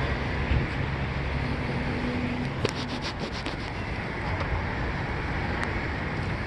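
Vehicle engine running with steady road and wind noise, a quick run of small clicks or rattles about three seconds in.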